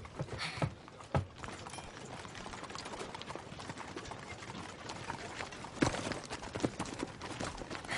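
Hooves of several horses clip-clopping at a walk, the knocks overlapping irregularly, with one louder hoof strike near the middle.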